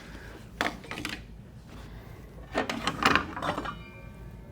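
A couple of knocks, then a burst of scraping and clattering as parts of a SawStop table saw are handled, ending in a short rattling stretch.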